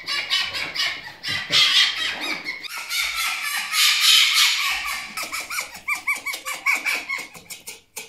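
Fennec fox calling in a fast, high-pitched chatter of short squeaky calls, several a second. In the second half it turns into a quick run of short chirps that rise and fall, about five a second, then stops just before the end.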